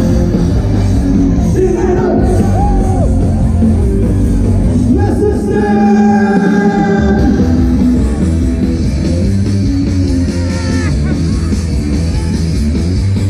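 Live rock band playing loud through an outdoor festival stage's sound system, with a singer; a long sung note is held about five seconds in.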